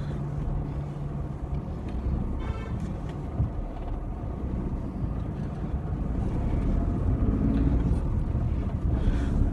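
Car running, heard from inside the closed cabin: a steady low engine and road rumble. A short faint tone comes about two and a half seconds in.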